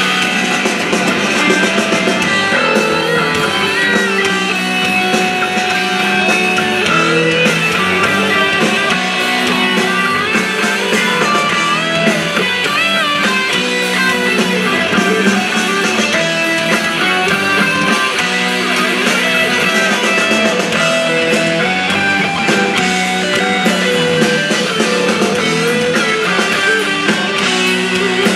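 Rock band playing live, with electric guitar, bass and keyboards.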